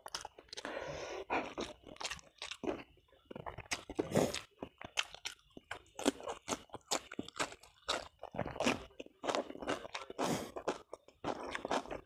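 Close-miked eating sounds: irregular chewing with crisp crunches and bites, including a bite into a raw cucumber slice about halfway through.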